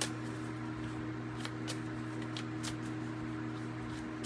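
A deck of tarot cards being shuffled by hand: irregular soft clicks and flicks of cards against one another, over a steady low hum.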